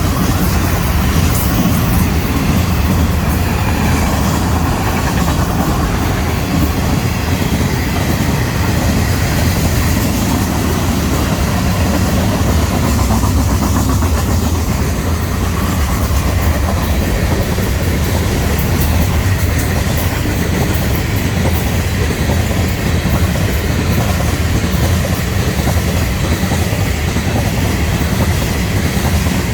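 Florida East Coast Railway freight train rolling past at close range, a loud, steady rumble of wheels on rail.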